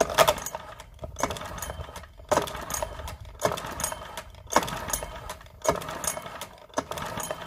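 Recoil starter of a Parsun 4 four-stroke outboard pulled about once a second, seven times, each pull spinning the engine over without it firing. The engine is being cranked for a wet compression test, with oil in the cylinder and a compression gauge in place of the spark plug.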